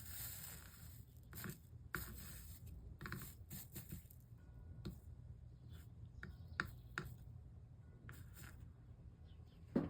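Soldering iron worked along the solder lines of a stained glass panel: a series of short, faint scratchy hisses with a few light clicks.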